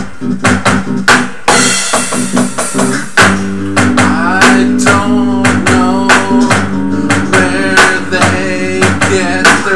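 Rock song with an acoustic bass guitar and drums, a cymbal-like wash about a second and a half in, and a man singing from about three and a half seconds in.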